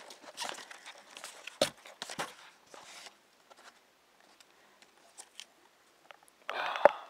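Hands rummaging through foam packing peanuts and handling plastic videotape cases: scattered light clicks and rustles, a quiet lull, then a louder rustle near the end.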